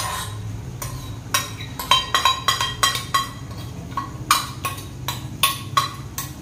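Metal spoon scraping and tapping against a glass bowl, an irregular run of sharp clinks as thick spiced yogurt is scraped out of it. A low steady hum runs underneath.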